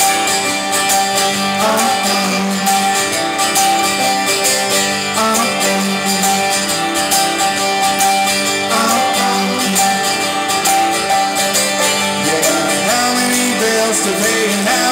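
Live band music: a guitar-led instrumental passage with strummed guitar over a steady beat.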